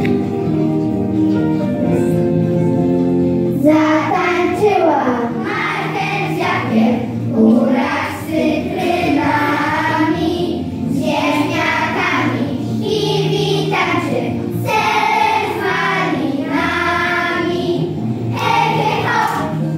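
A group of young children singing a song together in unison over instrumental backing music. The accompaniment plays alone at first, and the children's voices come in about four seconds in.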